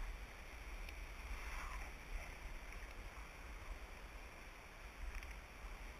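Wind buffeting the camera microphone as a steady low rumble, with a few faint clicks.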